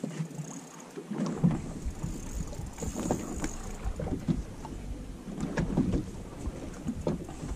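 Small waves slapping and knocking irregularly against the hull of a drifting boat, with wind buffeting the microphone from about a second and a half in.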